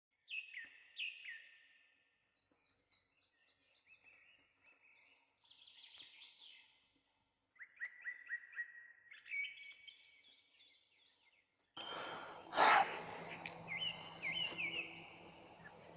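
Wild birds chirping: repeated short falling chirps and quick trills with quiet gaps between. About twelve seconds in a steady background hiss comes up, with one brief loud breathy burst like a sharp sniff or exhale, and the chirping goes on over it.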